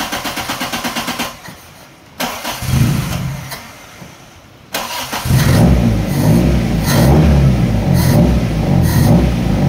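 Toyota Corolla 4A-F 16-valve four-cylinder engine being cranked on the starter with a fast rhythmic whirr, catching briefly near three seconds in and fading, then firing about five seconds in and running on with a wavering, uneven note. It is a hard-starting engine.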